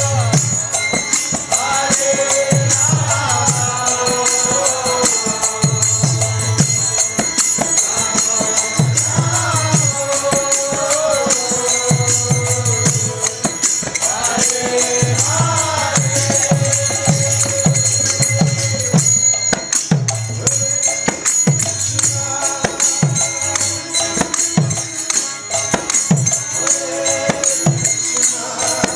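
Live kirtan: devotional chanting by a lead voice with other singers over a steady held tone, mridanga drums beating a repeating rhythm, and jingling metal hand cymbals. The drum strokes become more even and closer together about two thirds of the way through.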